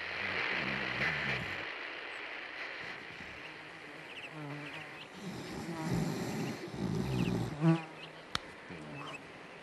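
A fly buzzing on and off over a noisy background, loudest near the end, followed by a single sharp click.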